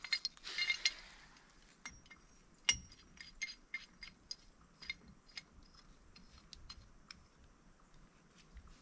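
Small metal parts clinking and clicking as they are handled: a quick cluster of ringing clinks at the start, then scattered light metallic clicks for several seconds.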